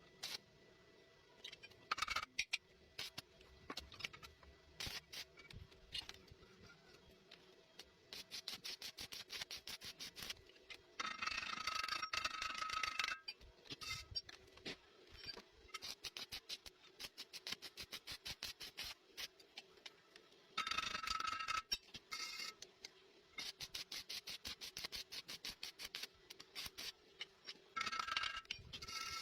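Stick-welding arc crackling in runs of rapid sharp pops, with a few louder, steadier spells as the rod burns.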